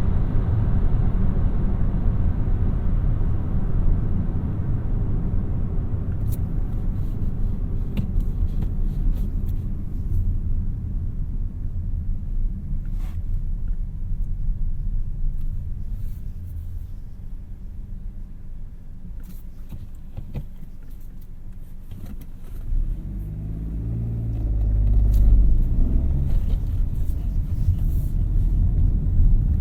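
Peugeot 3008's 1.2 litre PureTech three-cylinder petrol engine and tyre noise while driving: a steady low rumble that eases as the car slows. About two-thirds of the way through, the engine note rises as the car accelerates, then levels off.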